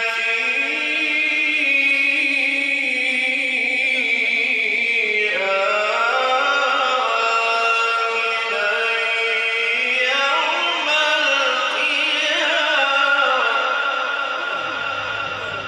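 A man reciting the Quran in melodic tajweed style, holding long ornamented notes that slide up and down in pitch. The phrase fades out near the end.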